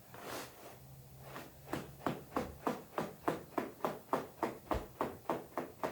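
A fast, evenly spaced run of sharp knocks or pops, about three a second, starting a little under two seconds in.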